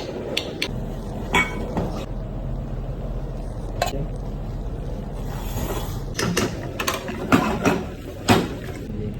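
Kitchen clatter: a dozen or so sharp knocks and clinks of dishes or utensils, bunched more thickly near the end, over a steady low hum.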